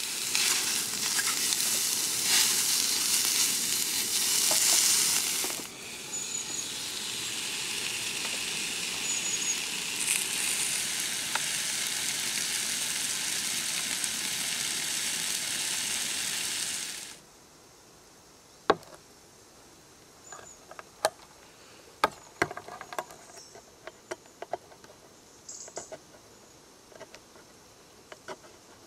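Sausages and bacon sizzling steadily in a Ridgemonkey pan on a gas camping stove. The sizzling cuts off suddenly about 17 seconds in, and a quieter run of scattered light clicks and taps follows, with a ring-pull tin of baked beans being opened near the end.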